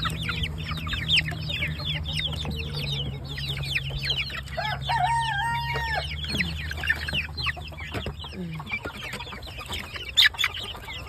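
A pen of young chicks screaming: a constant crowd of loud, quick, falling peeps, with one longer, lower call about halfway through. A steady low hum runs underneath.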